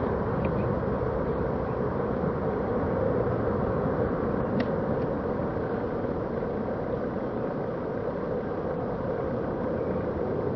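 Airbus A330-300's twin jet engines at takeoff thrust during liftoff and climb-out, a steady rumble.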